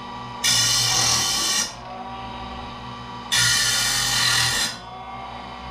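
Electric circular saw blade sharpener running steadily, its grinding wheel twice brought against a saw tooth. Each time a loud, high grinding lasts just over a second over the motor's hum.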